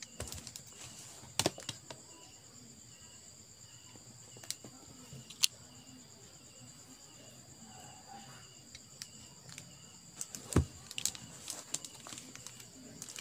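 Cardboard shipping box handled and turned over by hand: quiet rubbing with scattered sharp taps and knocks, the sharpest about five seconds in and again near ten and a half seconds. A steady high insect trill runs behind.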